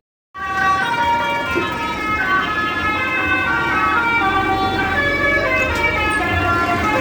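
Indonesian 'telolet' multi-tone bus horn playing a tune of held notes that step from pitch to pitch, starting a moment in.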